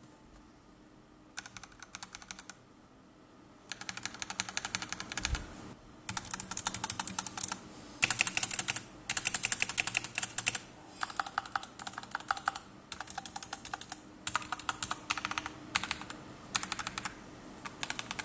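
Mechanical keyboard fitted with SA profile doubleshot PBT keycaps on Akko CS Matcha Green switches, its modifier keys pressed in quick runs of rapid keystrokes with short pauses between runs.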